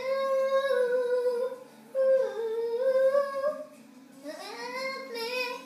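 A young girl singing long held notes in a high voice, the second one dipping and climbing back in pitch, and a rising slide into a last note near the end.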